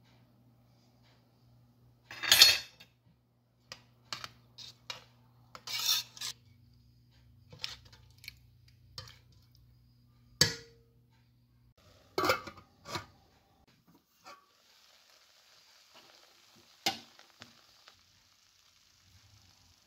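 Metal spoon clinking and scraping against a stainless steel cooking pot while stirring, a dozen or so sharp knocks with the loudest about two seconds in and about halfway. A low hum stops about two-thirds through and a soft hiss follows.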